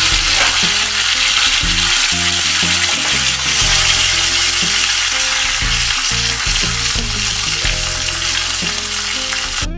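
Curry leaves, green chillies and black mustard seeds sizzling loudly in hot oil in a small pan, a tempering for dhokla. The sizzle cuts off suddenly near the end.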